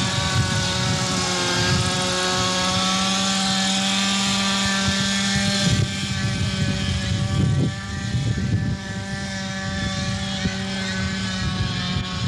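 Kalt Baron RC model helicopter's small O.S. glow engine running steadily at a high, even pitch in flight.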